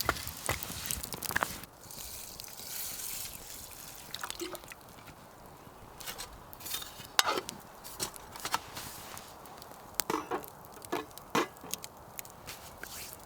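Scattered clicks and knocks from dinner being prepared at camp: cookware and food being handled. A few of the knocks near the end carry a brief ring.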